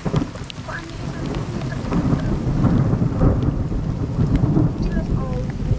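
Trail motorcycle running as it rides down a muddy forest track, a dense low rumble heard close on the rider's camera, getting louder after about a second.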